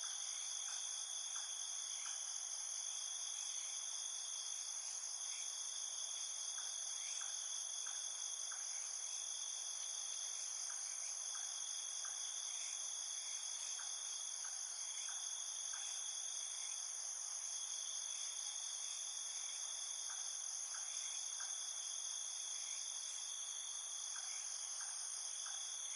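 Steady insect chorus of several high trills layered together, one of them swelling and fading in phrases of a few seconds, with faint scattered ticks.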